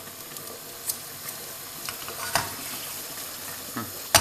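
Soffritto with vodka sizzling in a frying pan over a gas flame as the alcohol cooks off, with a few sharp clicks, the loudest near the end.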